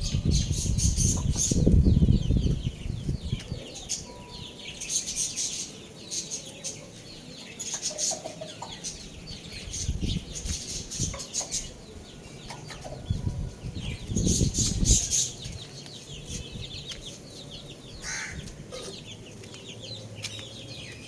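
Young roosters flapping their wings and clucking. There are several bouts of wing flapping, the loudest near the start and others about ten and fourteen seconds in, with scattered high, scratchy calls in between.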